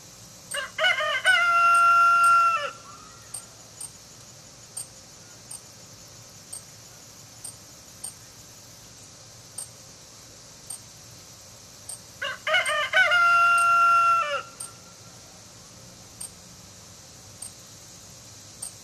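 Rooster crowing twice, about twelve seconds apart. Each crow lasts about two seconds, with a broken rising start and a long held note, given in the darkness of a total solar eclipse. Faint high ticks about once a second and a steady high hiss run underneath.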